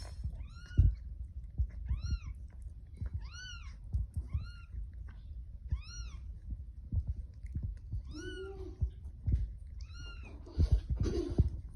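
Newborn kittens mewing: short, high-pitched mews that rise and fall, repeated about once a second, over low thumps and rustling.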